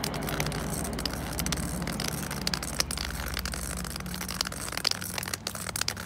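Roller tip of a white cane rolling steadily over a concrete sidewalk as the user walks: a constant scraping noise dotted with many sharp clicks.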